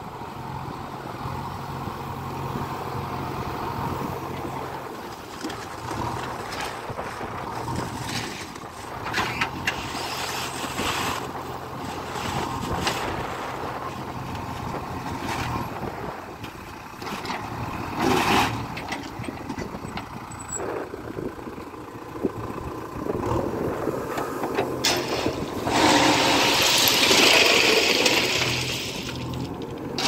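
JCB 3DX backhoe loader's diesel engine running steadily while the backhoe works crushed stone, with scattered knocks and clatters of stone and steel bucket. A louder rushing clatter of stone comes about four seconds before the end.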